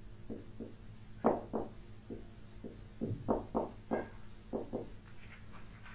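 Marker pen squeaking on a whiteboard in about a dozen short strokes while words are written, over a steady low electrical hum.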